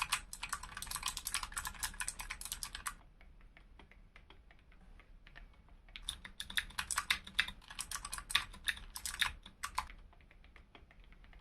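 Typing on a mechanical keyboard, an Akko Monsgeek M1 fitted with Akko V3 Cream Yellow linear switches lubed with G-Lube and Starry Sky keycaps: two quick runs of keystrokes, one for the first three seconds or so and a second from about six to ten seconds in, with only a few light taps between and after.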